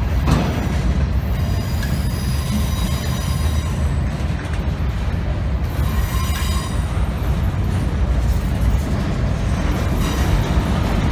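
A train rolling past, its railcars making a steady heavy rumble on the rails, with high-pitched wheel squeal breaking out twice.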